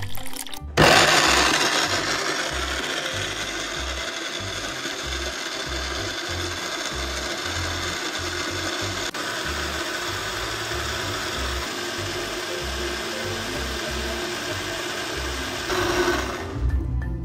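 Sunhouse countertop blender switched on about a second in, grinding corn kernels and water into a thick slurry. It is loudest at first as the whole kernels are smashed, then runs steadily until it cuts off just before the end.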